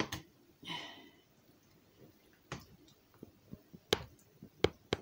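Kitchen handling sounds while pasta is dished up: several sharp clicks and knocks of a utensil and dishes, with a short scrape about a second in.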